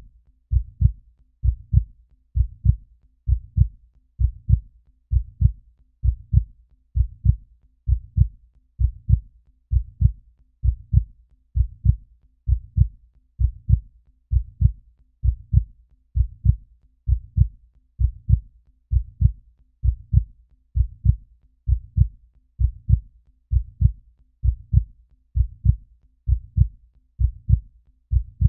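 Recorded human heartbeat at almost 70 beats per minute: a steady, even double thump (lub-dub) repeating a little under once a second, deep and bass-heavy.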